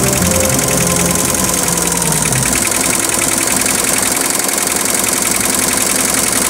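Computer embroidery machine running, its needles stitching at a fast steady rate.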